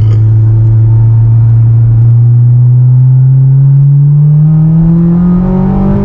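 Honda S2000's four-cylinder engine through a Skunk2 MegaPower cat-back exhaust, heard from inside the cabin while driving. The drone holds steady for about two seconds, then rises in pitch as the revs climb under acceleration.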